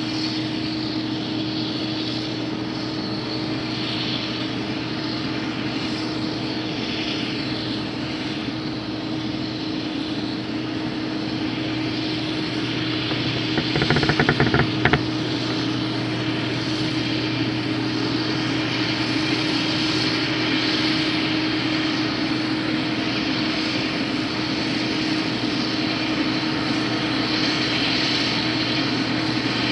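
IH 2577 combine running steadily at working speed while harvesting wheat, a constant mechanical drone. A brief burst of clicks and rattles about halfway through.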